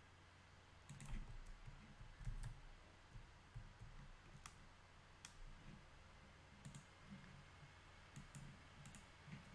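Faint clicking of a computer keyboard and mouse while working at a desk: about a dozen scattered clicks, several in quick pairs, each with a soft low thump.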